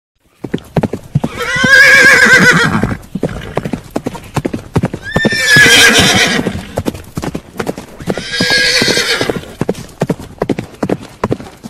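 Horse hooves clopping in a quick, even gallop, with three loud whinnies, each lasting one to two seconds and wavering in pitch.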